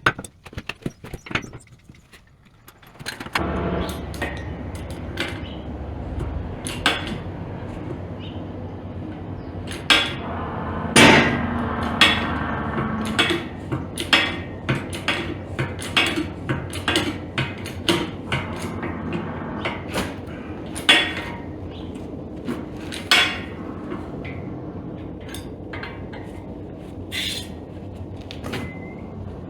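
Repeated hammer blows on steel, driving a tight, heat-expanded fitting down onto a shaft. The strikes come irregularly, with the hardest blows around the middle. A steady low rushing noise sets in about three seconds in and runs underneath them.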